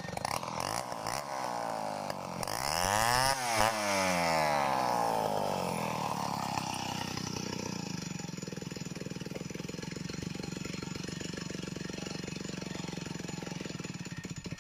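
Stihl 070 two-stroke chainsaw running unloaded: revved briefly a few seconds in, then winding down to a steady idle.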